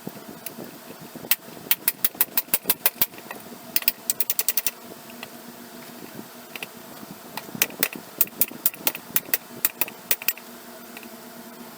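Metal tools working on a blacksmith vise to take it apart: three quick runs of sharp metallic clicks or strikes, several a second, with pauses between, over a low steady hum.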